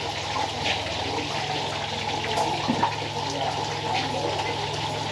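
Steady kitchen hiss with scattered crackles over a low steady hum, the sound of food frying in a pan or of running water.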